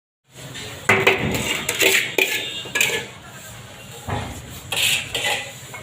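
Steel plastering trowel clinking and scraping against metal as mortar is worked, in a string of sharp irregular clanks.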